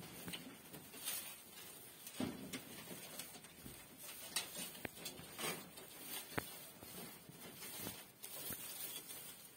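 Dry straw rustling and crackling in irregular bursts, with a few sharp clicks, as a doe rabbit digs and pushes through the bedding in her nest box: nest-building before kindling.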